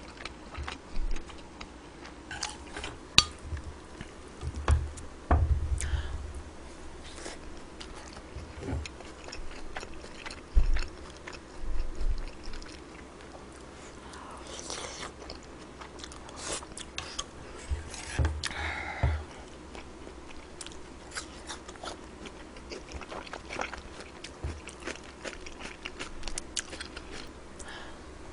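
Close-miked eating sounds: chewing and biting on kimchi fried rice with pork belly, with scattered sharp clicks and taps. A few dull thumps stand out, the loudest about five to six seconds in.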